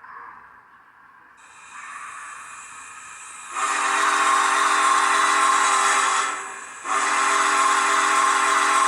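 Sound system of an MTH HO-scale Union Pacific 4014 Big Boy model playing the steam whistle taken from the real 4014. A steam hiss comes up about a second and a half in, then a long, loud whistle blast from about three and a half seconds. After a brief gap a second blast starts near seven seconds and carries on.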